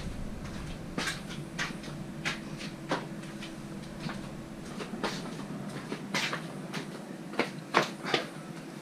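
Irregular light clicks and knocks from handling things, a dozen or so spread through, with a few louder ones near the end, over a faint steady hum.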